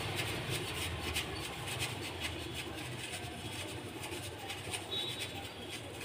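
Mustard seeds, cumin seeds and a dried red chilli frying in hot oil in a small steel kadai: a sizzle with many small, irregular crackles and pops. This is the tempering (popu) for rasam.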